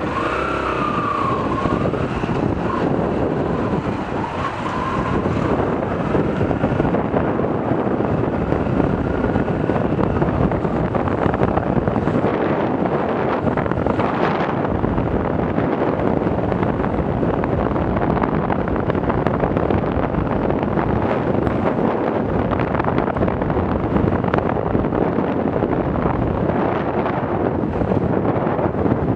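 Yamaha YBR 125's single-cylinder four-stroke engine running under way, mixed with steady wind and road noise on a helmet-mounted microphone.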